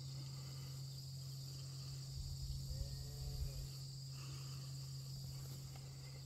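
Quiet outdoor ambience of insects chirring steadily at several high pitches over a steady low hum, with a brief low rumble about two seconds in.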